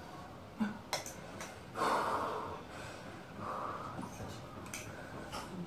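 Heavy breathing and sniffing of a person eating very hot chili noodles, with two louder hissing breaths about two and three and a half seconds in. The breathing is a reaction to the burn of the chili. A few light clicks of forks against plastic bowls are heard between the breaths.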